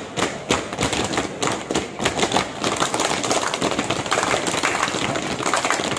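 Many sharp, irregular claps and foot stamps over steady crowd noise, from a scout troop's yel-yel routine.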